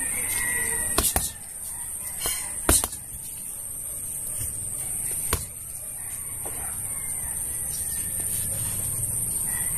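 Boxing gloves hitting a hanging black plastic-covered punching bag: a few irregular thuds, the loudest about a second in and just before three seconds, over a steady high insect drone.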